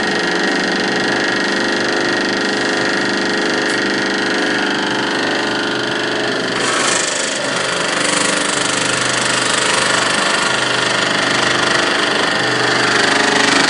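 Motor-driven power hammer running steadily, hammering a sheet-metal quarter panel as it is fed through.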